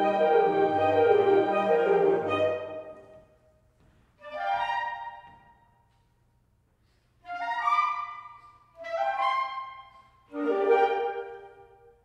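Woodwind ensemble of flutes, clarinets, bass clarinet, saxophones and bassoons playing. A full sustained chord ends about two and a half seconds in and fades away. Four short, sharply attacked chords follow, separated by silent pauses, and each dies away over about a second.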